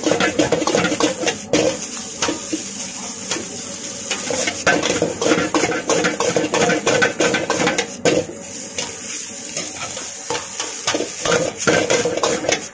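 Steel ladle scraping and clanking against an iron wok as egg fried rice is stirred and tossed, a quick run of strokes over a steady frying hiss.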